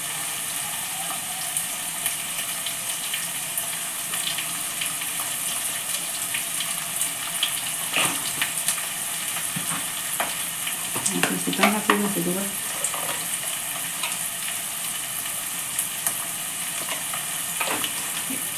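Chopped vegetables sizzling steadily as they fry in oil in a non-stick kadai, with a few light clicks. A short burst of a voice about eleven seconds in.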